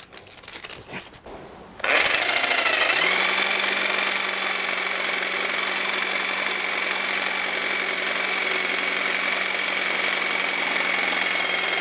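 Jigsaw with a new, sharp wood blade cutting through a soft pine board. After a couple of seconds of light handling the saw starts and runs steadily at a constant pitch through the cut.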